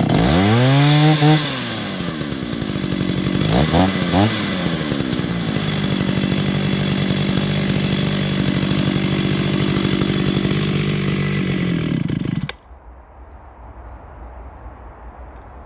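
Small two-stroke chainsaw, being carburettor-tuned, fires up and revs, then falls back. It blips twice and settles into a steady idle. After about twelve seconds it cuts out abruptly.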